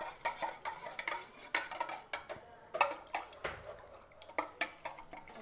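Metal spoon stirring lemon water in a stainless steel tumbler, clinking against the sides several times a second in an irregular rhythm, with a sparser stretch around the middle.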